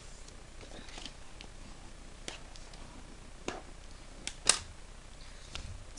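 Paper being handled, slid and pressed on a grooved scoring board: scattered light taps and clicks, with one sharper, louder click about four and a half seconds in.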